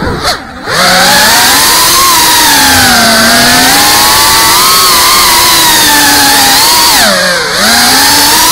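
FPV racing quadcopter's brushless motors and propellers whining loudly, the pitch rising and falling with throttle. The pitch and loudness drop sharply about half a second in and again near the end, where the throttle is cut for a flip or roll.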